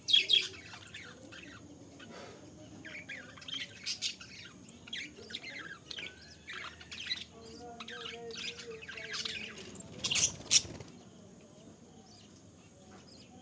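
Baby parrots chirping in quick, short high notes, with loud bursts right at the start and again about ten seconds in; the calls die away near the end.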